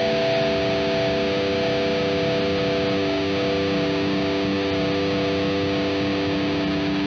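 Les Paul–style electric guitar fitted with a bone nut, played through distortion: natural harmonics ringing and sustaining as several steady held tones, with no new notes struck.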